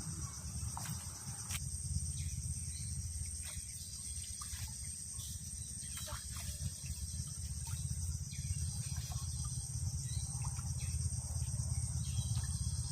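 Steady high-pitched drone of insects. Underneath runs a low rumble, with a few short clicks and knocks scattered through.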